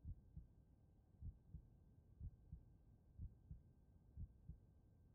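Faint heartbeat: low lub-dub double thumps, about one a second, five in all.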